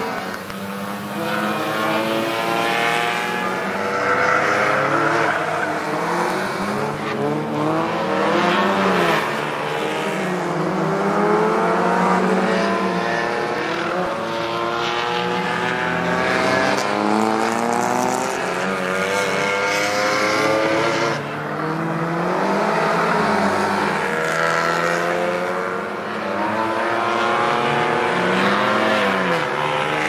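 Rally cars racing through a tight circuit, Renault Twingo hatchbacks among them: engines revving hard and falling back through gear changes and lifts, over and over, several cars heard at once.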